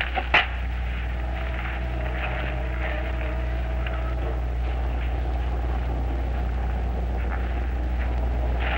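Steady low hum with hiss: the background noise of an old 16mm film soundtrack transferred to videotape. A click comes right at the start, and a few faint held tones sound in the first few seconds.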